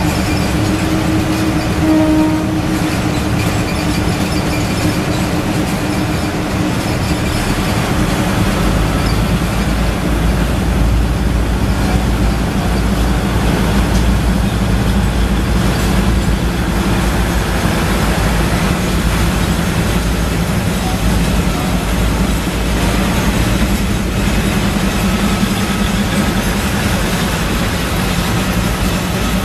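Freight train of tank wagons rolling steadily past on the rails, a continuous rumble and rattle of wheels and couplings. A brief higher tone sounds about two seconds in, and a deeper low rumble builds after several seconds and holds.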